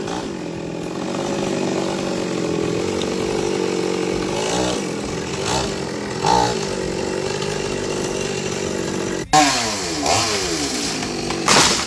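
Chainsaw running steadily while cutting through a coconut palm trunk. About nine seconds in there is a sharp crack, and the engine note then slides down.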